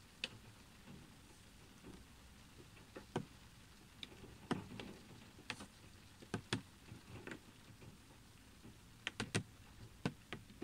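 Faint raindrops tapping on a car windshield, heard from inside the car: irregular sharp ticks over a low steady hiss, with a quick run of several taps about nine seconds in.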